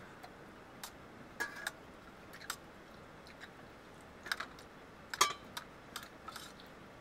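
Metal spoons and a ladle clinking against steel plates and a cooking pot in scattered taps during a meal. The loudest clink, about five seconds in, has a short metallic ring.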